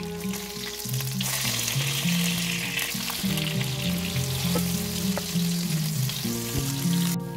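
Rohu fish steaks sizzling in hot oil in a nonstick frying pan as they are turned with a wooden spatula, with background music underneath. The sizzle swells about a second in and cuts off suddenly near the end.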